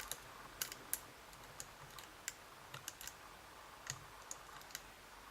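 Faint, irregular small clicks and ticks of a pick working the sliders inside a Vachette V DIS Plus dimple lock, as the picker tries to set them.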